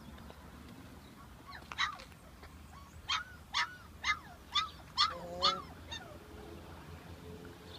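A dog yipping: one short high yelp, then six more in quick succession, about two a second.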